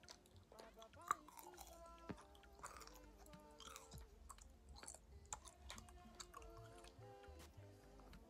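Faint close-miked chewing of Millions apple chewy sweets: soft, irregular wet clicks and smacks of a mouth working the small chewy candies.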